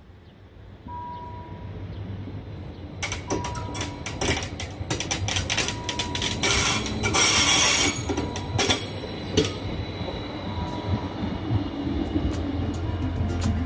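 StB S-Bahn Steiermark electric railcar passing close by. Its wheels click sharply and repeatedly over the track, a thin high steady tone runs underneath, and it is loudest about seven seconds in before fading as it pulls away.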